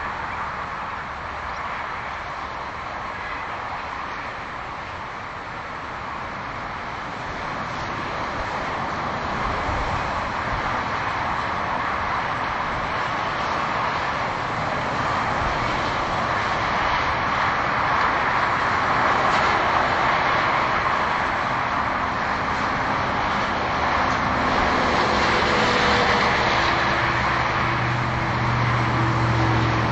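Highway traffic noise: a steady rush of cars' tyres and engines at speed, slowly swelling louder. Near the end a low engine hum with steady tones rises over it.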